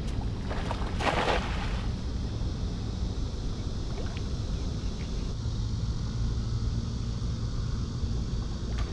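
Wind buffeting the microphone as a steady low rumble, with one short rushing splash of water about a second in.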